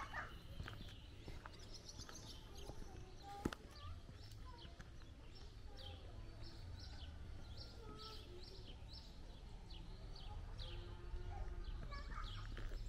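Birds chirping outdoors, short repeated calls scattered throughout, over a low steady rumble. A single sharp click about three and a half seconds in.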